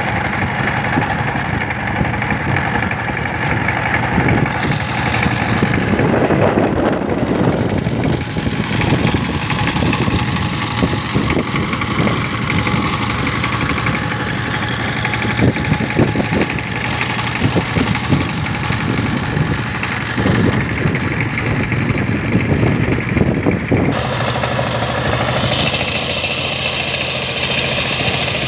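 Single-cylinder diesel engine of a two-wheel power tiller running steadily with a rapid knocking beat while the machine tills a flooded paddy.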